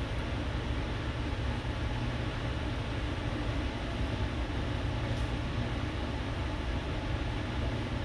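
Steady low hum with an even hiss over it, a constant background drone that does not change.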